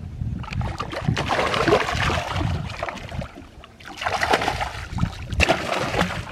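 A hooked musky thrashing and splashing at the surface beside the boat, in two spells of uneven splashing with a short lull about three and a half seconds in.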